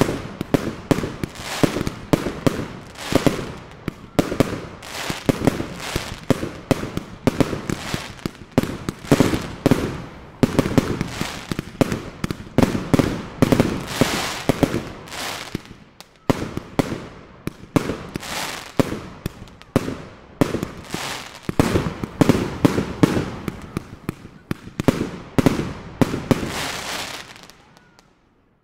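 Aerial fireworks bursting in quick succession: sharp bangs and crackling, several a second, which stop about a second before the end.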